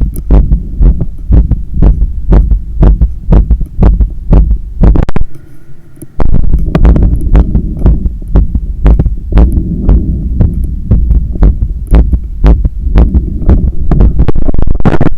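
A fast, hard-pounding human heartbeat heard through a stethoscope on the chest, its lub-dub beats following in quick succession, raised by hard exertion from a long run and a stair climb. It goes briefly quieter about five seconds in.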